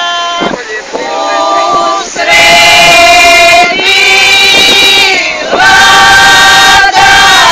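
A mixed group of men's and women's voices singing a traditional Herzegovinian folk song together, unaccompanied, in long held, wavering notes. The singing grows louder about two seconds in, with a short breath-break between phrases.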